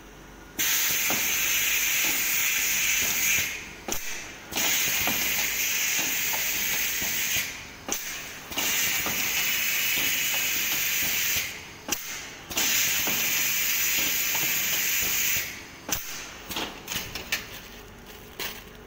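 Automatic PE stretch-film soap wrapping machine running: four long hisses of about three seconds each, with a break of about a second between them filled with clicks and light knocks. A run of sharp clicks comes near the end.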